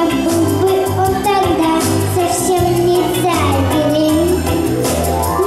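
Young girls singing a pop tune into microphones over a backing track with a stepping bass line and drums, amplified through a PA.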